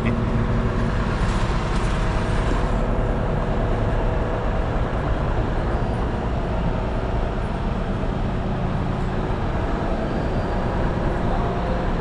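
Diesel engine of a Zoomlion 70-metre truck-mounted concrete pump running steadily, driving the hydraulics that unfold the boom: a constant low engine hum.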